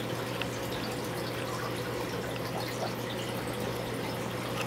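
Aquarium water trickling and dripping with small scattered ticks, over a steady low hum.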